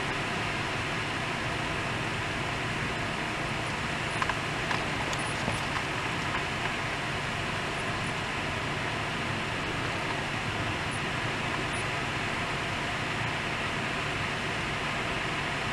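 Heavy rain and wind gusts of a severe thunderstorm, a steady hiss, with a few faint clicks about four to five seconds in.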